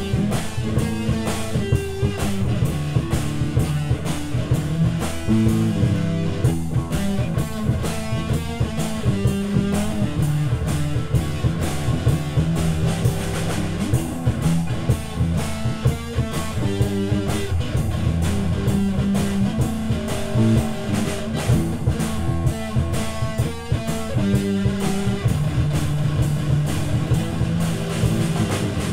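Instrumental psychedelic rock jam: guitars playing over a drum kit that keeps up a steady beat.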